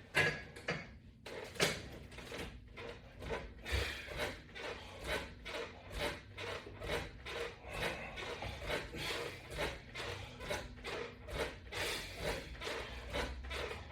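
Rubbing noises repeating about twice a second from a body and straps moving through a set of sit-up or crunch repetitions.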